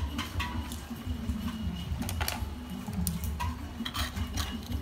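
Light, irregular clicks and taps of plastic toy kitchen utensils and pots being handled, several a second, over a steady low hum.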